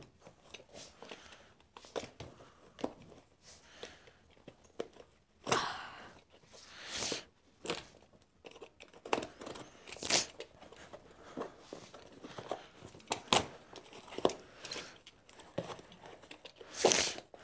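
Snap-off utility knife cutting through a plastic courier mailer and the taped cardboard box inside it, with irregular scraping, crackling and tearing of plastic and cardboard as the parcel is pulled open.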